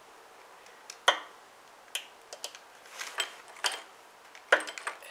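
A tiny flathead screwdriver ticking and scraping against the carburetor of a Predator 212 engine as the stock brass main jet is unscrewed. About ten sharp metal ticks come at uneven intervals.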